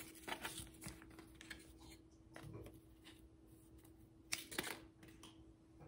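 Faint rustling and scattered light clicks of cardboard and yarn being handled as a tied yarn ball is pulled off its cardboard template, with a few sharper clicks about four and a half seconds in.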